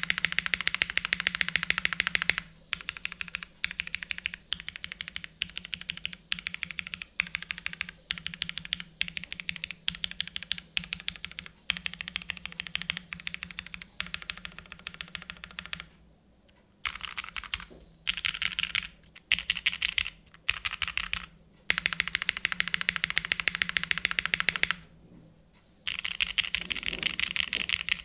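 Fast typing on an Anorexus Void65 mechanical keyboard in O-ring mount, with Cherry MX2A Black linear switches and GMK keycaps. It comes as rapid runs of keystrokes, each a second or two long, broken by short pauses.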